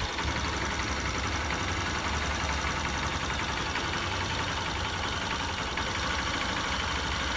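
Freshly rebuilt Honda Bros 150 single-cylinder engine idling steadily just after its first start, warming up.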